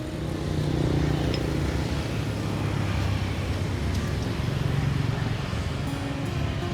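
Street traffic: the steady running of passing vehicle engines, with a low rumble.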